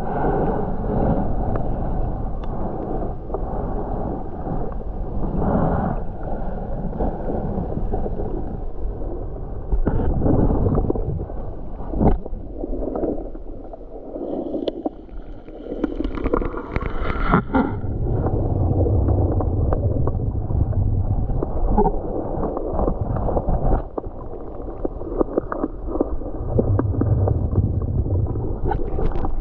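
Muffled, rumbling water noise heard through a GoPro camera held underwater, with gurgling and a few sharp knocks.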